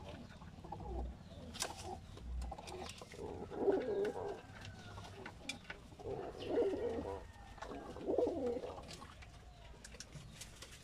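Fantail pigeons cooing in three throbbing phrases a couple of seconds apart, with scattered short sharp taps.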